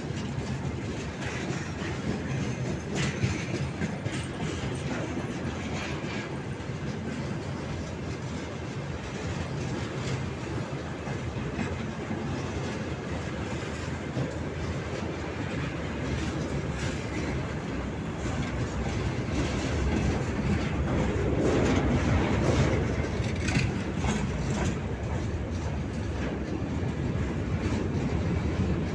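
Freight wagons rolling past at close range: a steady low rumble of wheels on rail, with their clicks and knocks over rail joints scattered through it. It grows somewhat louder about two-thirds of the way through.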